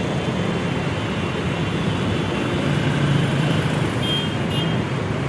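Diesel bus and truck engines running at low speed with traffic noise, a steady low hum, growing a little louder as a truck passes close by. A faint short high tone sounds about four seconds in.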